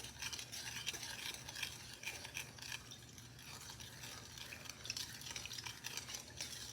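Sugar water being stirred to dissolve the sugar for hummingbird nectar: faint, irregular scraping and light clicking of the stirring utensil against the container.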